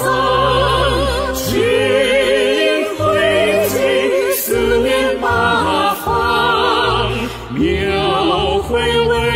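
A song with voices singing a slow Chinese-language anthem with wide vibrato over instrumental accompaniment with sustained bass notes.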